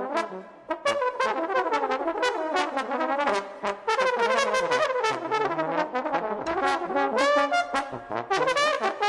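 Jazz trombone playing a fast line of quick, sharply attacked notes on a brisk up-tempo tune.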